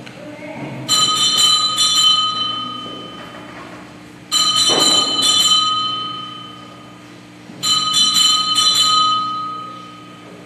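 Altar bells rung three times at the elevation of the host, marking the consecration. Each ring is a quick cluster of strikes whose bright, clear tones fade over two or three seconds.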